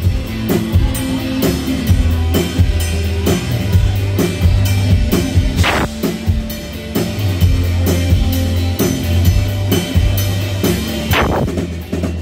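Rock band playing live: a drum kit beat with kick, snare and rimshots over a steady low bass line, with a cymbal crash about six seconds in and another near the end.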